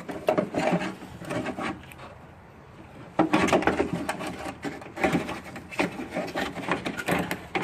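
Parts being slid back into place in a car's trunk lid during a trunk latch replacement: irregular scraping, rubbing and clicking of metal and plastic. It briefly settles about two seconds in, then picks up again in denser scraping and clicks.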